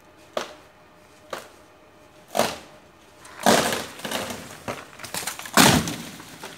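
Axe blows into a tree branch: two sharp chops about a second apart, then a heavier one. A cut branch then comes crashing down through the leaves and lands with a loud, heavy thud near the end.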